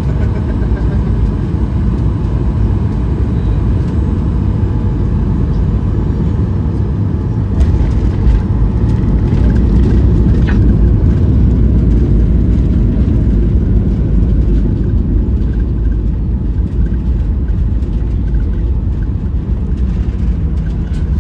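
Jet airliner cabin noise heard from a window seat: the steady, deep rumble of the engines and airflow, growing somewhat louder for a few seconds around the middle.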